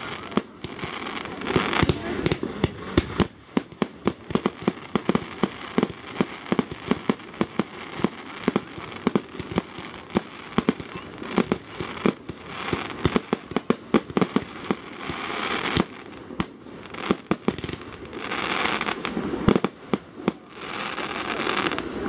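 Fireworks display: aerial shells bursting overhead, dozens of sharp bangs in quick succession, with several short spells of dense crackle.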